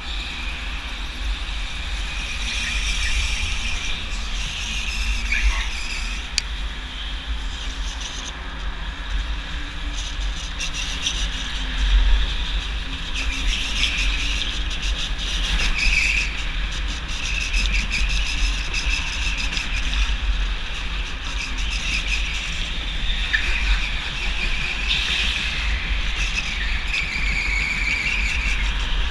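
Go-kart driven at speed round an indoor track, heard from an onboard camera: a steady low rumble and running noise, with tyres squealing through the corners, most clearly around the middle and near the end.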